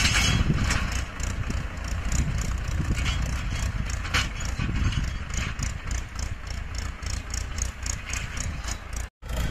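Tractor diesel engine running under load as it pulls a tine cultivator through stony ground: a steady low rumble with a regular ticking clatter over it. The sound cuts out for a moment near the end.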